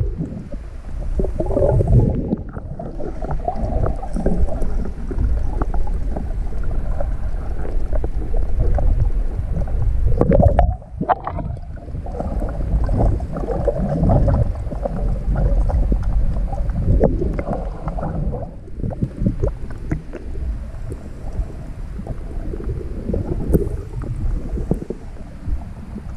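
Muffled underwater sound picked up by an action camera submerged in the sea: low rumbling and gurgling of water moving against the camera housing as the swimmer moves. It surges unevenly and dips sharply for a moment about eleven seconds in.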